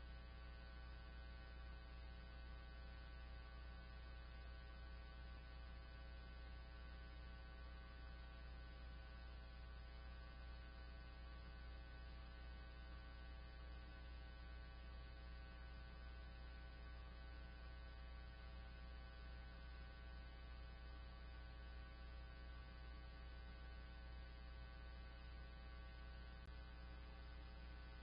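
Faint steady electrical hum, a low drone with a stack of higher tones above it, and a single faint tick near the end.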